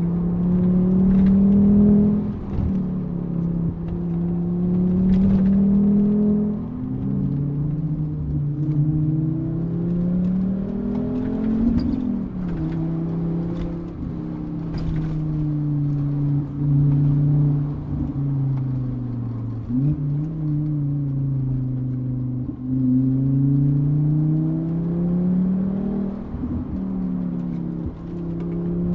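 Volvo V70R's 2.5-litre turbocharged five-cylinder engine driving along. Its pitch rises steadily under throttle and then drops back sharply, again and again.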